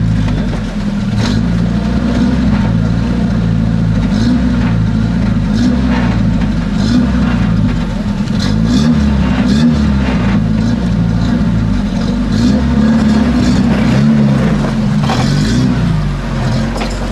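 Rock-crawling buggy's engine running under load and revving up and down as it climbs over boulders, with occasional sharp knocks.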